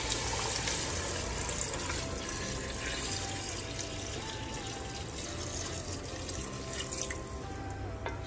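A steady stream of water poured from a container into an aluminium cooking pot, splashing onto browned beef and oil, easing off near the end.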